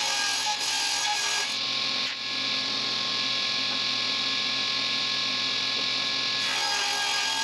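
A stationary woodworking machine running with a steady whine as a long board is fed through it. A hissing cutting noise comes in about two seconds in and falls away near the end.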